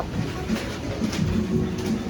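Restaurant background music with a steady beat, about two beats a second, under the hum of the dining room.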